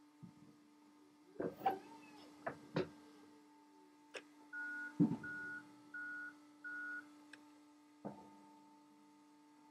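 Forklift running with a steady hum while its forks and the press basket give several sharp metal clunks. Then its reversing alarm beeps four times at an even pace, followed by one more clunk.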